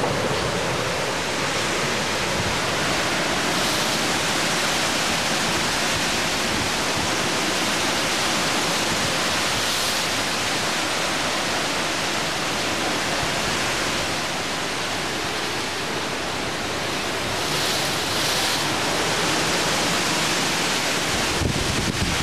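Hurricane wind and driving rain in a dense, steady rush, swelling in gusts about four, ten and eighteen seconds in. Wind buffets the microphone with low thumps near the end.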